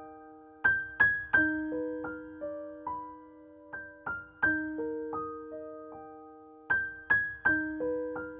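Background music: a slow, gentle solo piano melody of single struck notes, each ringing and fading, in a short phrase that repeats about every three seconds.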